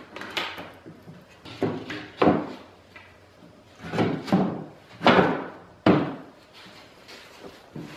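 Wooden boards knocking and thudding as a lumber frame of 2x4s and OSB is put together: a series of irregular wooden knocks and bumps.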